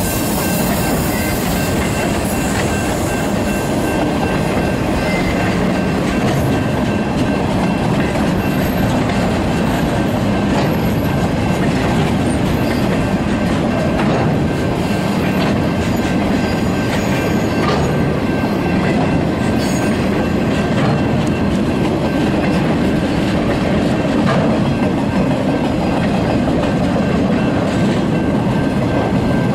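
Loaded freight flatcars rolling past close by in a steady rumble, wheels clicking over the rail joints, with a faint steady high squeal from the wheels.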